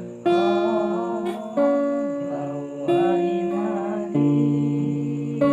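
Acoustic guitar strumming a new chord about every second and a quarter, with voices singing a wavering melody over the first few chords of an Arabic devotional song.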